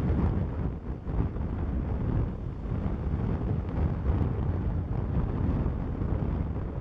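Strong wind buffeting the microphone: a low, gusty noise that rises and falls in loudness.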